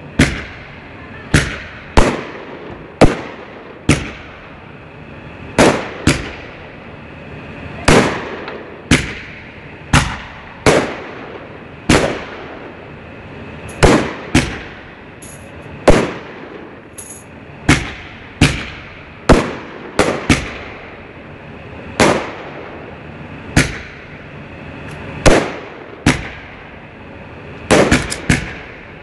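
Aerial firework shells going off in a steady string of sharp bangs, roughly one a second, each trailing off in an echo. Near the end several bangs come in a quick cluster.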